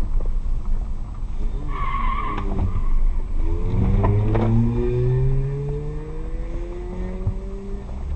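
Car engine accelerating, its pitch rising steadily for several seconds, over road noise. About two seconds in there is a brief high squeal, and a few sharp knocks follow.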